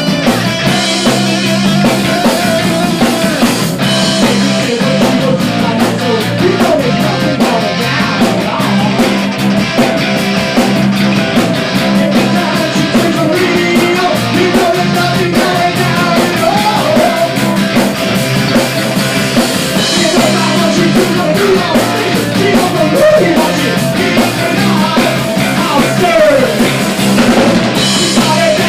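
Loud punk-rock band music: distorted electric guitars and a drum kit with a singing voice, playing steadily throughout.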